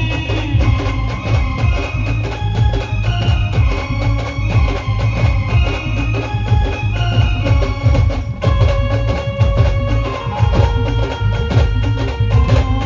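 Live band music: an instrumental passage of held and moving melody notes over heavy, steady drumming, with no singing.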